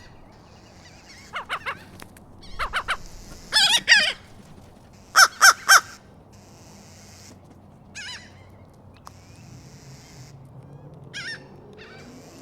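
Birds calling: short, harsh, pitched calls in quick groups of two or three, the loudest run of three about five seconds in, then single calls further apart.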